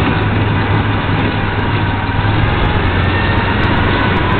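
Off-road buggy's engine running steadily while driving on a rough dirt trail, heard from inside its open roll cage, with a constant low hum under a dense rush of road and wind noise.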